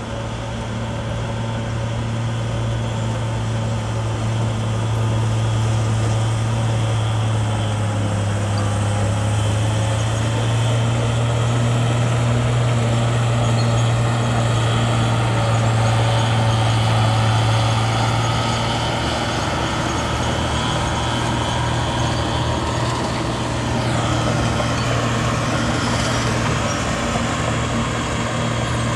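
Bulldozer's diesel engine running steadily with a deep hum, building up over the first few seconds and easing off a little past the middle.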